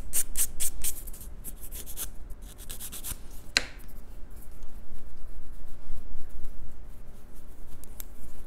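Sponge nail buffer rubbed in quick back-and-forth strokes across a fingernail, sanding its surface, about four strokes a second for the first two seconds. A single sharp tap comes about three and a half seconds in, followed by softer, fainter rubbing.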